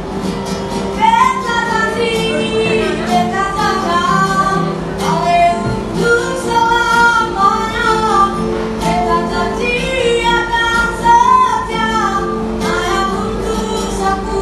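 A street busker singing a melody in a high voice with vibrato, over a steady instrumental accompaniment.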